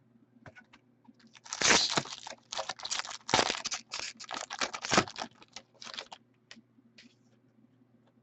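Foil wrapper of a trading card pack being torn open and crinkled: a run of crackling tears from about a second and a half in until about six seconds in, with a few light clicks around it.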